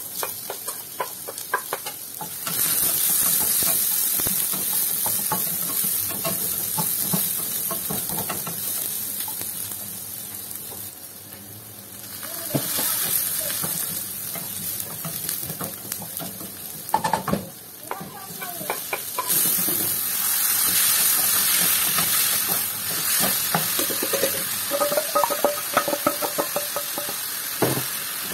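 Chopped shallots and garlic sizzling in hot oil in a nonstick frying pan, with a wooden spatula scraping and clicking against the pan as they are stirred. The sizzling swells louder a few seconds in and again twice later on.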